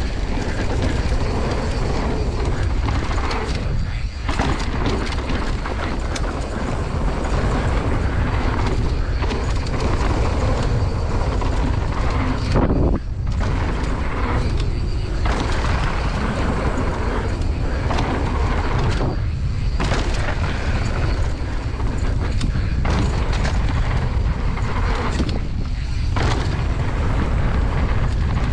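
Mountain bike running fast down a dirt trail: a steady heavy rumble of wind on the microphone and tyres on the ground, with scattered knocks from the bike over rough ground.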